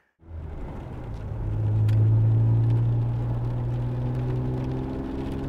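Vauxhall Cavalier GSi 4x4's X30XE 3.0 V6 engine, breathing through tubular manifolds and a 2.5-inch exhaust, running under way as the car drives. Its note climbs slowly, then jumps up in pitch near the end.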